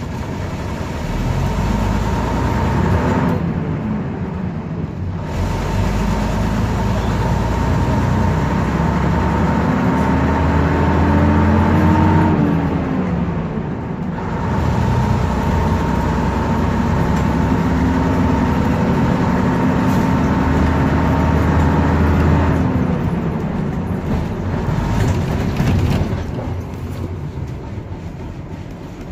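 Leyland Atlantean double-decker bus's diesel engine heard from the upper deck while under way, loud and steady. Its note climbs and then drops twice as the bus pulls through the gears, with a steady high whine over it, and it falls away near the end as the bus slows.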